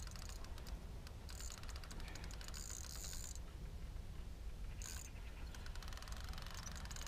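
Fishing reel being cranked to wind in line, a fast run of fine mechanical ticks from its gears, louder in two stretches.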